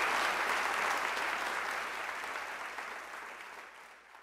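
Live audience applauding, a dense patter of many hands clapping that fades steadily away toward the end.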